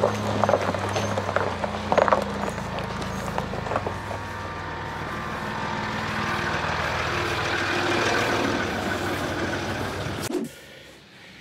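Land Rover Discovery 3's air-suspension compressor running with a steady, rising whining hiss as it works to keep air in the suspension, over the idling 2.7 TDV6 diesel. In the first couple of seconds, sharp clinks come from the rear snow chains on stones. The sound cuts off suddenly about a second before the end.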